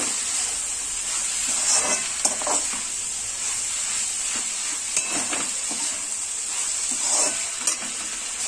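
Onions and tomatoes sizzling in oil in a kadai while a metal slotted spoon stirs them, scraping against the pan now and then. The onion-tomato masala is being sautéed down until soft.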